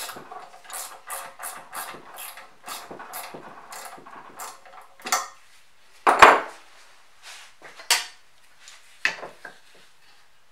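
Hex key turning a bolt on the steel bracket of a Kity 652 mortiser, making a run of light metal clicks about three a second. After about four seconds come a few single, louder metal knocks and clanks as parts are handled. The loudest is about six seconds in.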